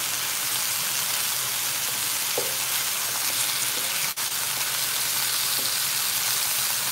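Chunks of beef short rib and chuck roast searing in a skillet at high heat, sizzling steadily as they are turned with tongs.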